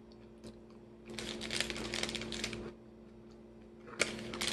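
Close-up crunching of candied pecans being chewed, in two stretches: one starting about a second in and lasting about a second and a half, another starting near the end. A steady faint hum runs underneath.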